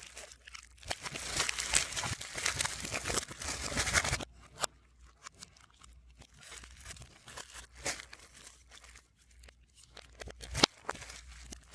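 Album packaging being crinkled and torn, played backwards: dense crackling rustle for about four seconds, then sparser rustles and clicks, with one sharper click near the end.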